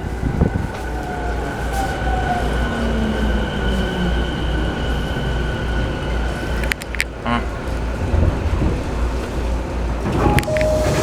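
E217 series electric train running, a steady low rumble with a thin steady whine over it and a cluster of sharp clicks about seven seconds in.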